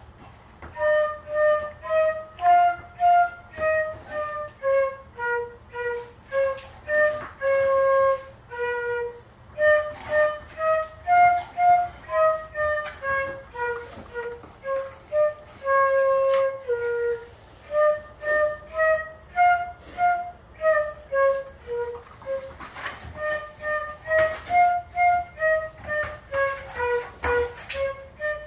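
Transverse flute played live, a slow melody of separate held notes that climbs a little and then steps down, the same phrase coming round several times.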